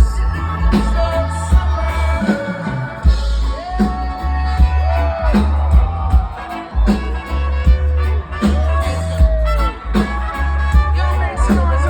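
Live band music: a singer over a heavy bass line and a steady drum beat.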